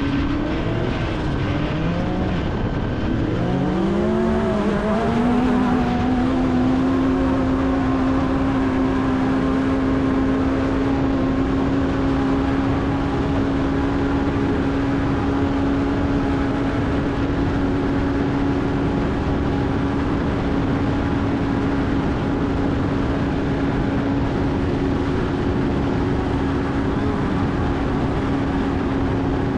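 Off-road race vehicle's engine under race power. Its pitch rises and falls with the throttle over the first five seconds, then holds one steady pitch, over a heavy rushing noise.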